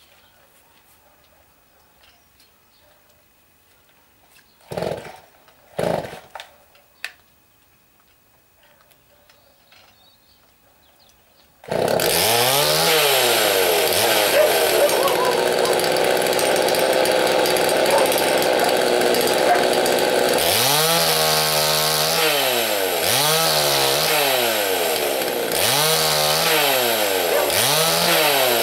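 Two-stroke chainsaw. After two short loud noises about five seconds in, it starts abruptly about twelve seconds in and runs steadily. From about twenty seconds in its engine is revved up and let back down again and again, about every two and a half seconds.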